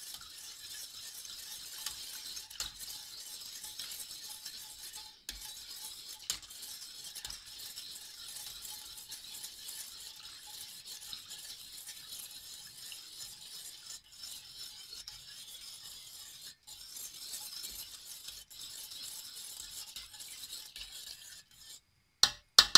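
Small wire whisk stirring melting butter, sugar and water in a stainless steel pot: a steady swishing with faint ticks of the wire against the metal. Near the end, a few sharp, louder metallic knocks.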